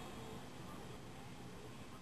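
Crystal radio tuned off a strong station: a faint, even hiss with only a trace of weak station audio.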